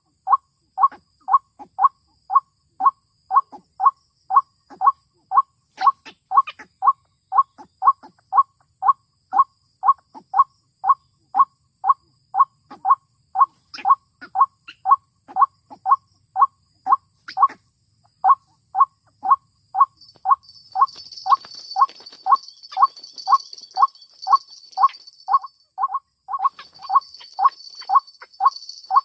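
White-breasted waterhen call, one note repeated with machine-like evenness about twice a second, typical of a lure recording played to draw the birds in. A high hissing drone joins about two-thirds of the way in, breaks off briefly, and returns near the end.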